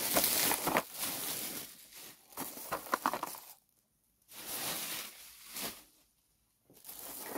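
Bubble wrap and thin plastic wrapping crinkling and rustling as a parcel is unwrapped by hand, in a few short stretches broken by two brief dead-silent gaps.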